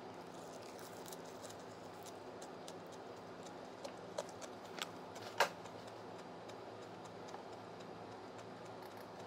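Chopsticks clicking and tapping against a clear plastic salad container while picking up leaves, with a steady low hum underneath; the clicks come thicker about four to five seconds in, the loudest a sharp click about five and a half seconds in.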